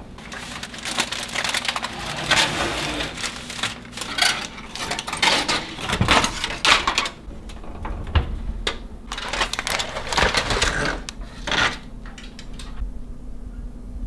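Aluminium foil over a roasting pan crinkling and rustling as it is handled, in irregular bursts, with a few knocks of the pan and oven door; the rustling dies down near the end.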